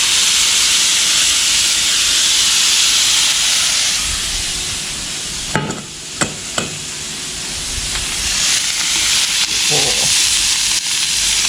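Garlic-butter-marinated barramundi pieces sizzling on a hot barbecue hot plate. The hiss eases slightly midway and builds again, with three sharp clicks about halfway through.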